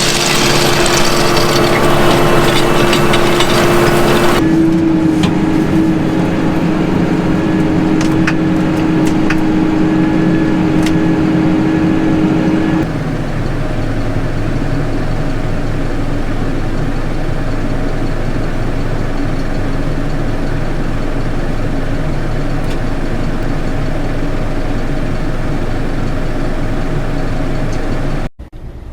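Engine of a farm tractor running steadily, with a steady whine over it. The sound changes abruptly about four seconds in and again near thirteen seconds, where the whine stops.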